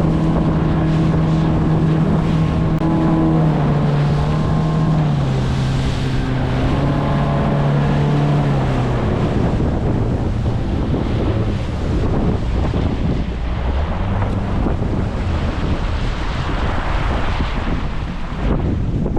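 A small boat's outboard motor running under way, its note stepping down about four seconds in and again near nine seconds before fading. Wind buffets the microphone and water splashes against the hull throughout.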